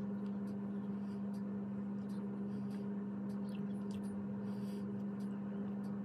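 A steady low hum that does not change, with faint soft clicks of eating and finger-licking over it.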